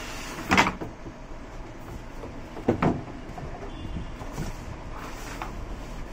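Cardboard box and foam packing blocks being handled and slid apart: two loud, brief scraping rustles, about half a second in and again just before three seconds, then quieter rubbing and knocks.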